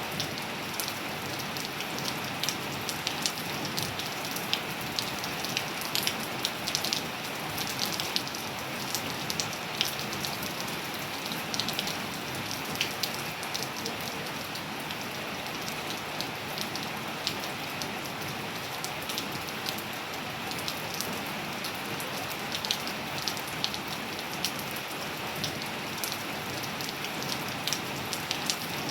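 Steady rain falling, an even hiss with many scattered close drop ticks and patters landing on hard surfaces.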